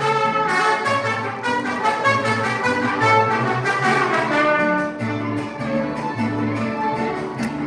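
Brass-band music with trumpets over a bouncing low bass line, the notes changing several times a second.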